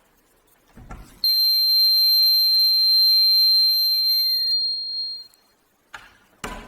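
Homemade door alarm's buzzer sounding one loud, steady, high-pitched tone for about three seconds, starting just after a knock and cutting out about four and a half seconds in. A couple of short knocks near the end.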